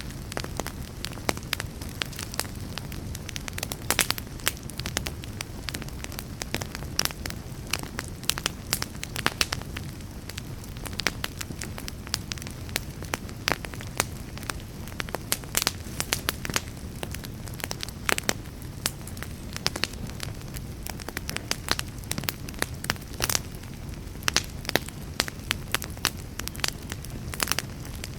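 Wood fire burning in a fireplace: a steady low rumble of flames with frequent, irregular sharp crackles and pops of the burning wood.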